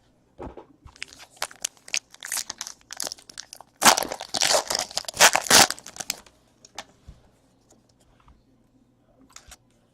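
A baseball card pack's wrapper being torn open and crinkled, with the loudest tearing about four to six seconds in, followed by a few light clicks and rustles of handling.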